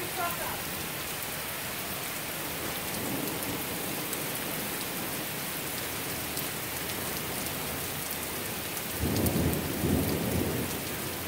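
Heavy rain falling steadily, with a low rumble of thunder about nine seconds in that lasts a second or two.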